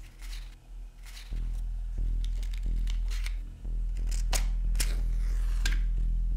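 Wooden match taken from a matchbox and struck against the box's striker: several short scratchy strokes, the last near the end lighting it. A low steady hum runs underneath.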